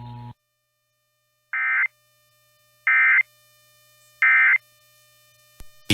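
Emergency Alert System end-of-message signal: three short bursts of SAME digital data tones, a little over a second apart, marking the close of the EAS test.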